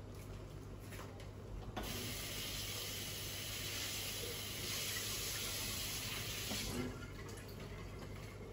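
Water running from a tap for about five seconds: it comes on about two seconds in and stops near seven seconds, over a low steady hum.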